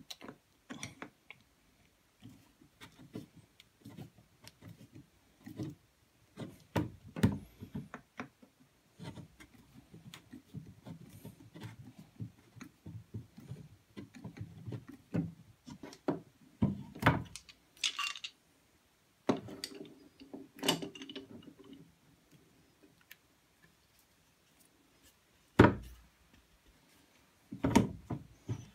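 Screwdriver scraping and tapping along the edge of a knife handle's figured wooden scales as it rests on a wooden board: scattered clicks, short scrapes and light knocks. A loud wooden knock comes about three quarters of the way in and another just before the end, as the handle is set into a bar clamp.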